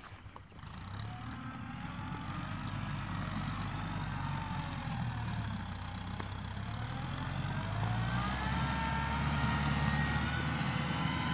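Farm tractor engine running under load as it works through a muddy, flooded rice paddy. Its pitch falls and then rises, and it grows louder over the last few seconds.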